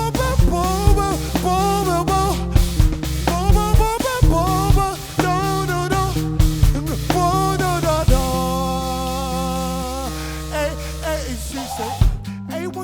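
Live band music with bass, drums and a bending lead melody over it. About eight seconds in the band holds long sustained chords, and near the end the sound thins out to short separate hits.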